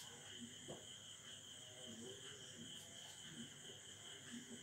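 Near silence: a faint steady high-pitched drone runs under a few faint ticks of a marker writing on a whiteboard.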